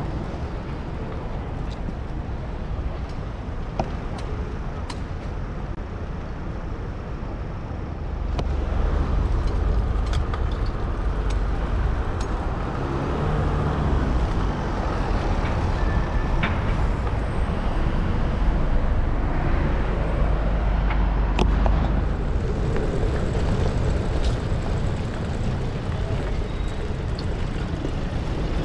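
Busy city road traffic heard from a moving bicycle, with engines running and the wash of passing vehicles. A low rumble of wind on the microphone sits under it and gets louder about eight seconds in.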